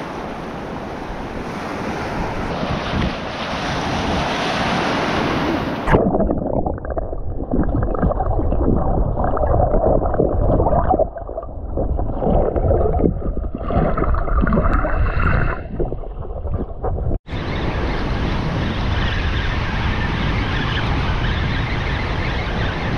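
Shallow surf washing over sand. About six seconds in, the sound turns suddenly muffled, heard from underwater with the higher sound gone. About eleven seconds later it switches back to open-air surf.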